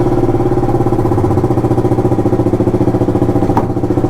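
Motorcycle engine running steadily just after being started, with a fast even exhaust pulse and no revving.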